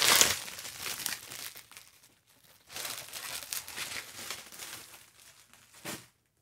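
Plastic bubble wrap crinkling and rustling as it is pulled off a boxed vinyl figure: loudest at the start, a short pause about two seconds in, then more crinkling and one brief rustle near the end.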